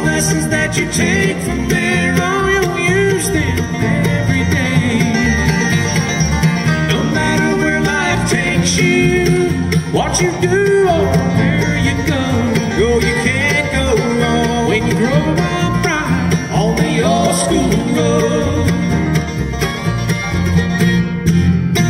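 Bluegrass band playing live, with banjo, mandolin, fiddle, acoustic guitar and electric bass.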